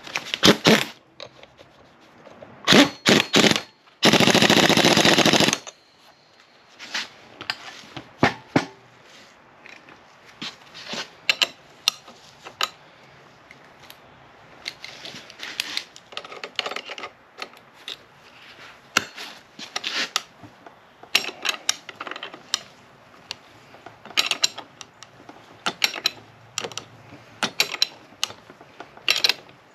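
A power wrench rattles as it runs the nut down the strut shaft: a few short bursts, then a run of about a second and a half. Scattered clicks and knocks of tools and parts follow.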